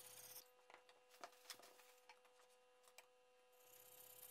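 Very quiet sharpening of a steel cleaver blade on a wet Japanese whetstone: a faint scrape near the start and again near the end, with a few light ticks in between.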